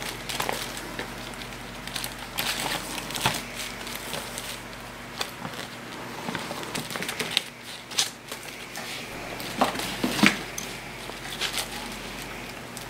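Paper and packing being handled as a folded user's manual is unfolded: rustling and crinkling with scattered sharp clicks, the loudest about ten seconds in.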